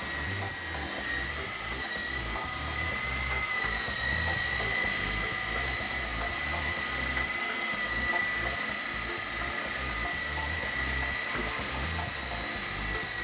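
E-Sky Hunter coaxial RC helicopter hovering: its twin 180-size electric motors give a steady high-pitched whine that wavers slightly in pitch, over an uneven low rumble.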